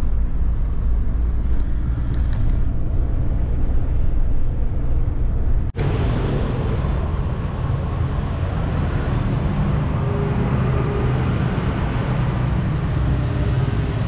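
Steady low engine and road rumble inside a moving passenger minibus. After a sudden cut about six seconds in, steady city street traffic noise with motorbikes takes over.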